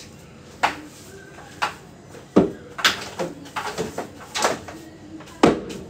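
A series of sharp knocks and clatters, about six in all and irregularly spaced, from a long wooden-handled floor-cleaning tool being worked against a tiled kitchen floor and fittings.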